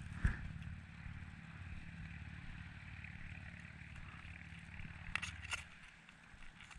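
Zip ties being pulled tight around a bicycle frame tube: a low, steady ratcheting rattle for about five seconds, ending with two sharp clicks.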